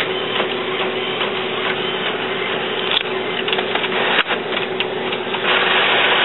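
Epson WorkForce 840 inkjet printer running a print job, with the steady mechanical whir of the carriage and paper feed over a low hum. There is a single sharp tick about four seconds in, and it gets louder about a second before the end. The printhead, flushed after clogging, is printing again.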